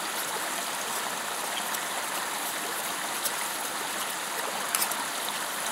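Optimus Vega canister stove burner hissing steadily under a steel cup of gravy being heated toward a boil, with a few faint clicks from stirring against the cup.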